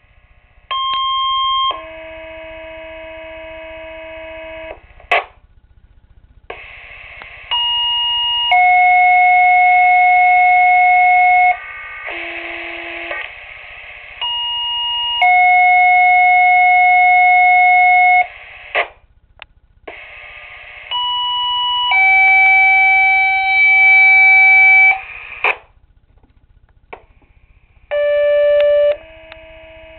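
Two-tone sequential fire-paging tones heard over a Minitor II pager's speaker: five pages about seven seconds apart, each a higher tone for about a second then a lower tone held for about three seconds, with radio clicks and hiss between them. Each tone pair is one fire company's page being sent in turn during the pager test.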